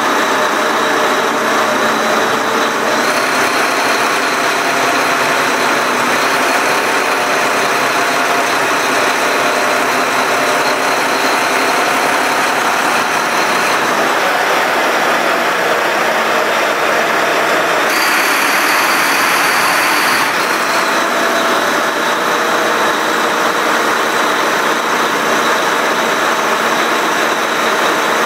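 Volvo Penta D13 inline-six marine diesel engine of an IPS1200 drive running, heard as a loud, steady engine-room din. A thin high whine rides above it and shifts in pitch a few times.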